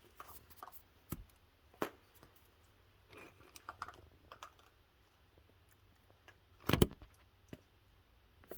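Raccoons feeding on cookies, making scattered light clicks and taps, with a louder clatter about seven seconds in.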